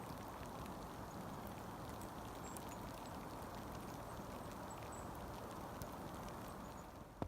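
Forest creek running steadily, with a few faint, short, high bird chirps.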